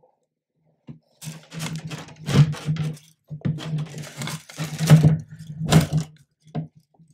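Handling noise from the extruder and the filament feed tube being worked by hand: irregular rustling, scraping and knocks of plastic, with a low hum that comes and goes with each sound.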